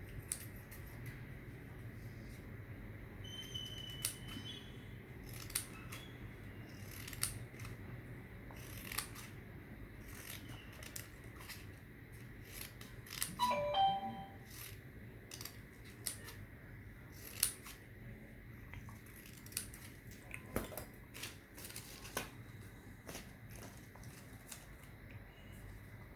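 Paper being worked by hand: scattered crisp clicks and crinkles of paper being cut and creased, irregular and with no steady rhythm.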